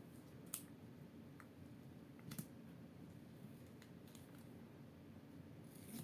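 A few faint, sharp clicks and ticks of small hand-handling, about a second apart at first, against quiet room tone.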